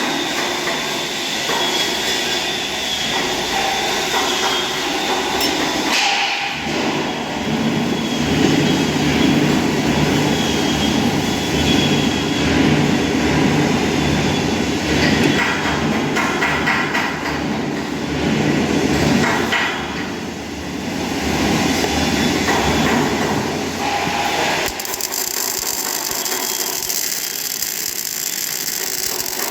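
MIG welding arc crackling and sizzling steadily as a bead is laid. About 25 seconds in the sound changes abruptly to a smoother steady hiss.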